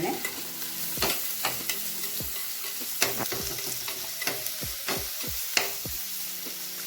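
Chopped onion, ginger, garlic and green chillies sizzling in hot oil in a pan, with a spoon knocking and scraping against the pan at irregular intervals as they are stirred.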